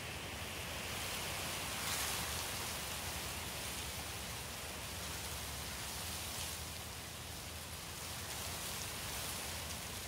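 Steady soft hiss of running or trickling water, swelling briefly about two seconds in.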